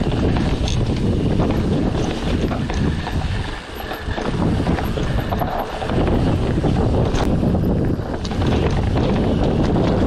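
Wind buffeting the microphone of a camera on a moving mountain bike: a heavy, steady rumble, with scattered sharp clicks and rattles throughout.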